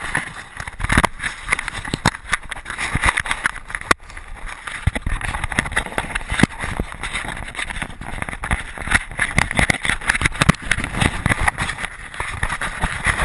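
Irregular rubbing, scraping and knocking of a dog-mounted action camera as the dog moves about and is handled. Rustling and thumps run throughout, with frequent sharp clicks.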